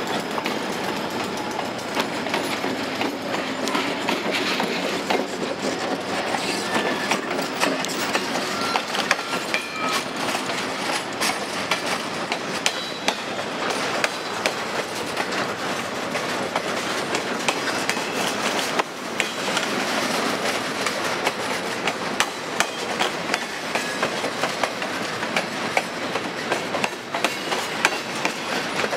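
Freight train passing close by, its boxcars and open-top hopper cars rattling and its wheels clicking over the rail joints in a fast, uneven run.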